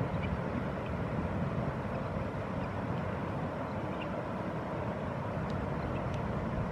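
Steady low outdoor rumble with no clear source, with a few faint short high chirps scattered through it.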